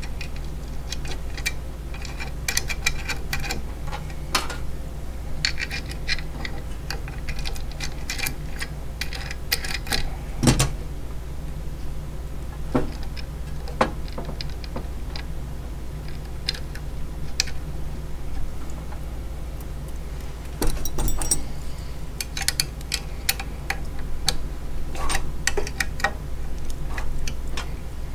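Irregular small metal clicks and clinks of steel nuts, washers and bolts being handled and threaded by hand while a mounting bracket is fitted to an LED light bar, with one sharper knock about ten seconds in, over a steady low background hum.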